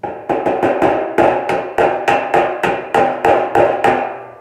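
Panel hammer tapping sheet steel on a dolly: rapid light blows, about four or five a second, each with a metallic ring, knocking down a high spot in a 1935 Chevy's hood side panel.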